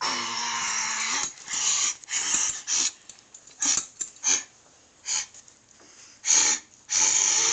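Dogs play-fighting and growling: one long growl about a second and a half long at the start, then short growling bursts every half second to a second.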